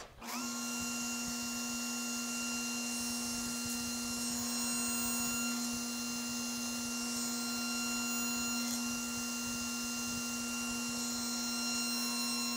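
Table saw switched on, its motor and blade winding up quickly to a steady hum and running evenly while the sled carries a board through the blade to crosscut its top end off.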